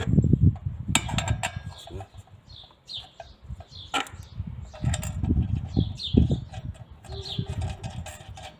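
Clicks, knocks and rubbing of metal parts being handled while a blade and flange washer are fitted onto a circular saw's arbor, with a few sharp clicks. Small birds chirp in the background throughout.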